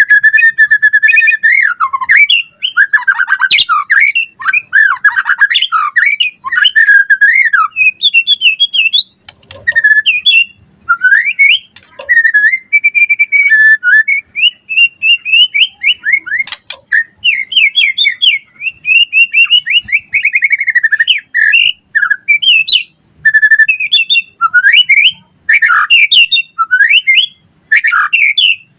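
White-rumped shama (murai batu) singing a loud, varied song of clear whistles, rapid trills, pitch glides and harsher squawk-like notes, in phrases separated by short pauses.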